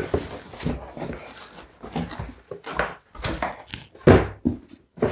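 Cardboard boxes being handled: a sneaker shoebox scraped and lifted out of a large shipping carton, with irregular rustles and knocks, the loudest about four seconds in.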